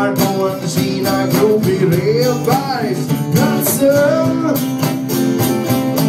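Song played on strummed acoustic guitar with a steady beat, during an instrumental stretch between sung lines; a gliding melody line comes in about two seconds in.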